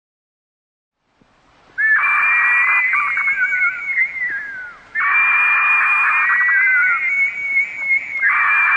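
Bird-of-prey screeching: harsh, high, drawn-out calls with falling whistled notes. They start after about a second and a half of silence and come in long bouts, with brief breaks about five seconds in and again near the end.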